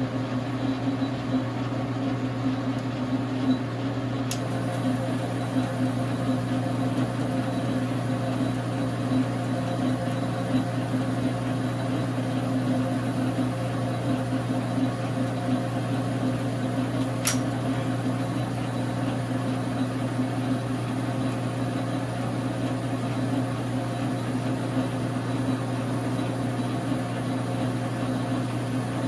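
Dar Sin 12x37 gap-bed metal lathe running steadily, its motor and gear train giving an even, unchanging hum. Two faint, sharp ticks come through, one a few seconds in and one past the middle.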